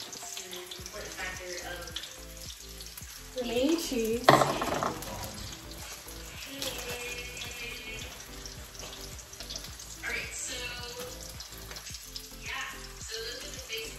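Steady kitchen sizzle of food cooking on the stove, with background music and one loud clatter about four seconds in.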